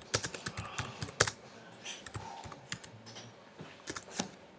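Typing on a computer keyboard: a quick run of irregular keystrokes, then a few scattered ones.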